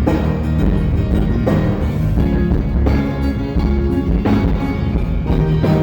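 A live band playing loud music, with heavy bass and drums under held pitched notes and a strong accent about every one and a half seconds.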